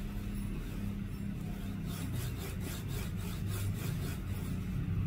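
Steel linear guide block from the Phrozen Sonic Mini 4K upgrade kit pushed back and forth by hand along its rail, its ball bearings making a rolling scrape. The scraping comes as a quick run of short strokes, about five a second, between two and four seconds in; the block sounds not as quiet as a Hiwin one but less noisy than the original.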